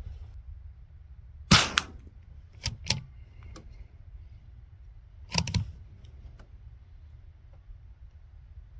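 Suppressed .22 LR rifle firing two shots about four seconds apart, with a couple of lighter clicks between them.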